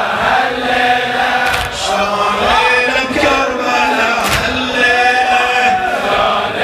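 Men's voices chanting a Shia mourning lament (latmiyya) together, with two sharp thuds about three seconds apart.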